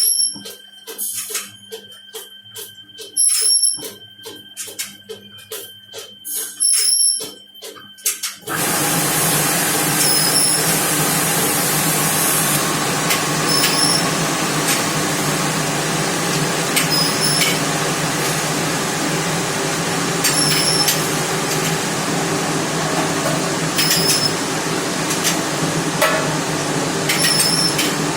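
Rack conveyor commercial dishwasher running: a low hum with clacks and short high chimes, then about eight seconds in a loud, steady rushing noise starts suddenly and runs on, with occasional clicks through it.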